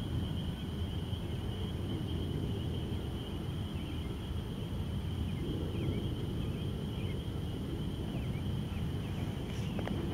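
Outdoor ambience at dusk: a steady low rumble under a steady high-pitched trill from insects or frogs, with a few faint short chirps and a brief sharp sound near the end.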